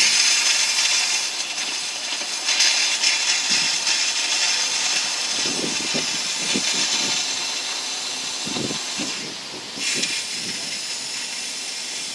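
Compressed air hissing out of an RV water outlet as the plumbing lines are blown out during winterization. It dips briefly near the end, then resumes.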